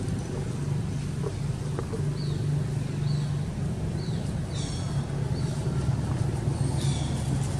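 A motor engine running steadily at a low, even hum, with short high falling chirps repeating every second or so and two brief buzzy calls over it.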